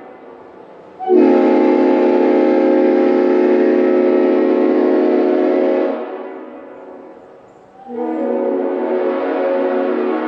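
Leslie RS5A five-chime air horn (a reproduction S5A fitted with RS heads) sounding two long blasts of a deep, extremely loud chord. The first starts about a second in, holds for about five seconds, then tails off. The second starts about eight seconds in and is still sounding at the end.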